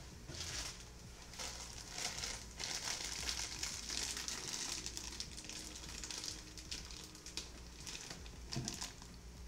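Plastic packaging crinkling and rustling in the hands, a bag of coleslaw mix being opened and handled, with a steady run of small crackles.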